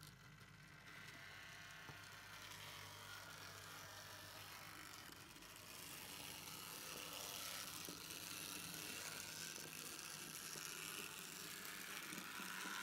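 N-scale model steam tank locomotive (class 64) running along the track, a steady electric-motor whir and mechanical rattle. It is louder from about halfway through and cuts off suddenly at the end. The owner puts the not-quite-quiet running down to some locos still needing new wheels and motor adjustment.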